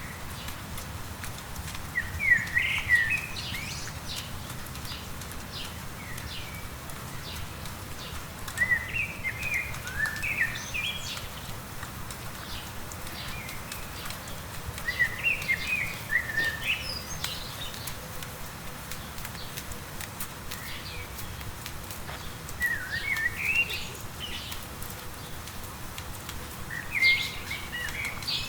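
A songbird sings a short warbling phrase five times, several seconds apart. Underneath is the steady hiss and patter of light rain.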